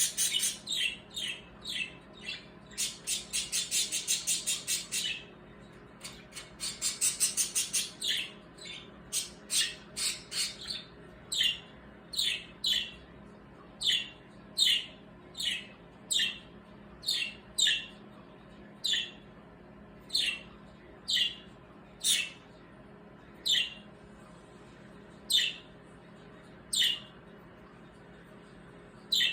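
Birds squawking and chirping: rapid bursts of fast, repeated chatter for the first several seconds, then single sharp chirps about once a second, each sliding down in pitch.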